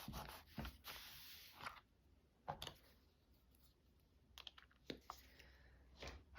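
Faint handling of paper and craft materials on a tabletop: scattered light taps and clicks, with a brief rustle about a second in.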